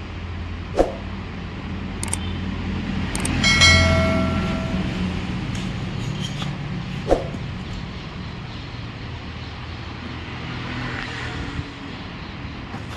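A steady low motor hum, with two sharp knocks and, about three and a half seconds in, a brief ringing tone.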